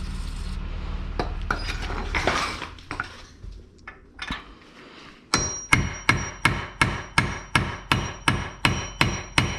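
Hammer blows on a center punch, driving a rust-seized CV axle shaft out of the front wheel hub. A few lighter knocks and scraping come first; about halfway through a steady run of hard strikes begins, about three a second, each with a metallic ring.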